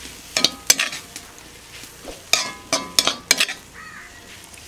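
A metal ladle scraping and knocking against a wok as an egg and punarnava-greens stir-fry is stirred and tossed, over light sizzling. The strokes come in two spells: two within the first second, then four in quick succession from about two seconds in.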